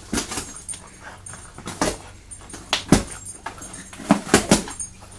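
A dog giving short, sharp barks, about seven of them, several in quick succession.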